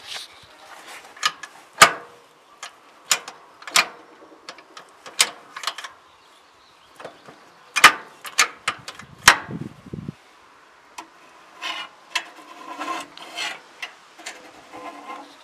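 Irregular sharp clicks and knocks, a brief low rumble about two thirds of the way through, then a stretch of rustling near the end.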